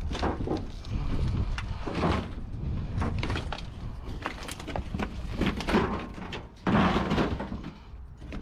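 Knocks, clunks and scraping of a fire-damaged sheet-metal household appliance being shifted and pushed about on a trailer. A louder scraping slide comes about two-thirds of the way through.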